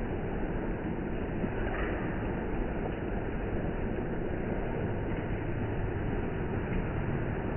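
Steady monsoon rain falling, an even hiss of rain.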